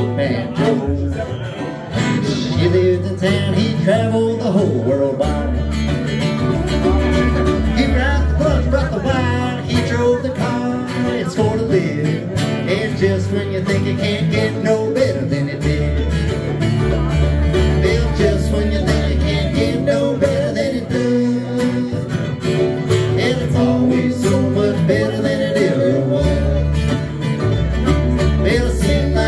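Live bluegrass band playing: mandolin, acoustic guitars and banjo picking over a plucked upright bass line.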